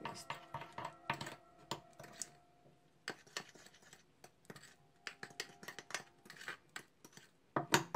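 Metal spoon clicking and scraping against a ceramic bowl while stirring thick red royal icing: an irregular run of small, quick clicks.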